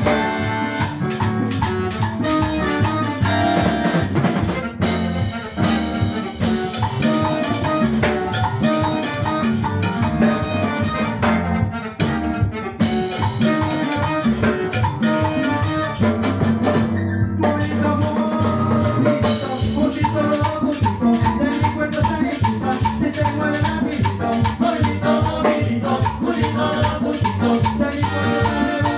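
Latin dance band playing salsa-style music: trumpets and other brass over drum kit and percussion with a steady beat, with a few short breaks in the groove.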